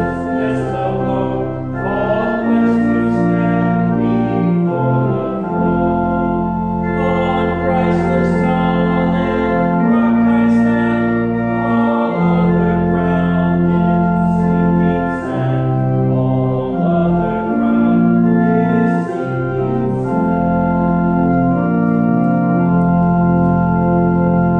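Organ playing slow music in held chords that change every second or two.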